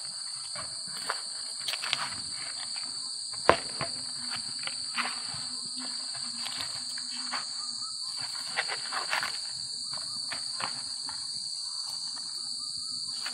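Insects chirring steadily in a high, unbroken drone, with irregular crackles and clicks of a knife cutting through crisp roast chicken skin and meat and a single sharp tap about three and a half seconds in.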